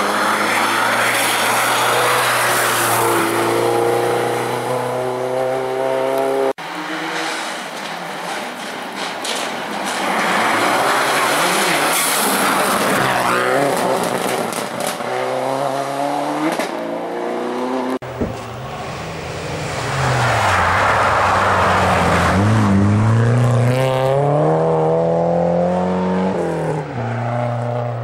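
Rally cars passing on a snow-covered gravel stage, the first two of them Subaru Impreza hatchbacks. Each engine revs hard, its pitch rising and dropping through gear changes, over the hiss of the tyres on the snow. There are three passes, and the sound cuts off abruptly between them.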